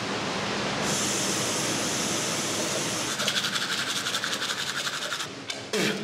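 Teeth being brushed with a toothbrush: quick, rhythmic scrubbing strokes, several a second, starting about three seconds in after a steady hiss.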